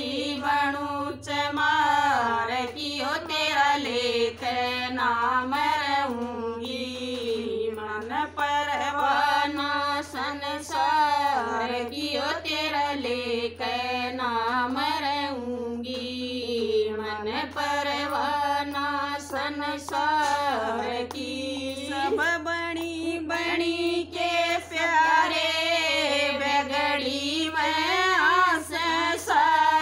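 Three women singing a Haryanvi bhajan (Hindu devotional song) together in unison, with hand claps keeping time.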